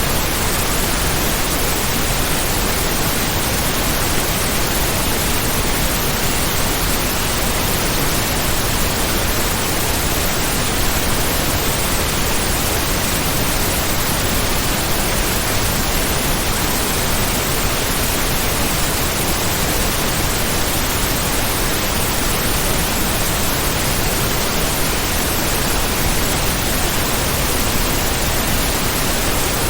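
Heavy rain as a dense, even hiss, with no single drops or gusts standing out and no change in level.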